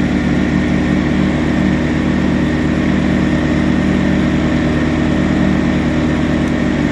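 Predator 2000 inverter generator's small single-cylinder engine running steadily at full speed with eco mode switched off, under light load.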